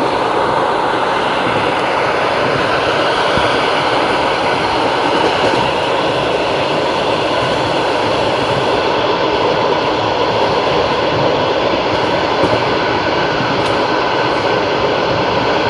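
Long-distance passenger train running steadily on the rails, the wheels giving a continuous rumbling clatter.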